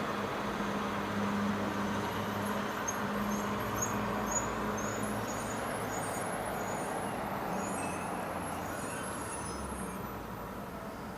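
Road traffic on wet streets: a vehicle engine hum and tyre hiss slowly fading away, with short high chirps repeating over it through the middle.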